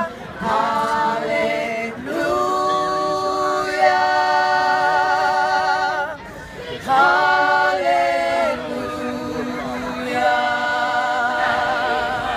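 A group of women singing together unaccompanied, in long held notes with a wavering vibrato, phrase after phrase with short breaks between.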